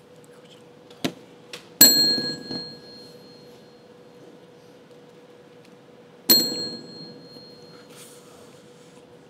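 Chrome service bell struck twice, about four and a half seconds apart, each a bright ding that dies away over about a second, rung as the cue that a move has been copied. Two short taps come just before the first ring.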